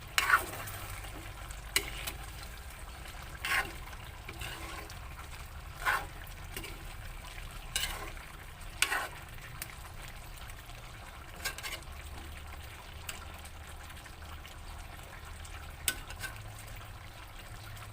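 Chicken simmering in a tomato-paste sauce in a pan, a steady frying sizzle, with a utensil stirring and scraping against the pan now and then.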